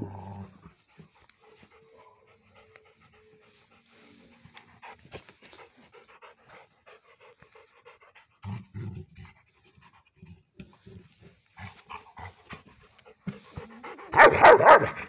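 Rottweiler panting, with a few soft low thuds about halfway through and a loud burst of noise near the end.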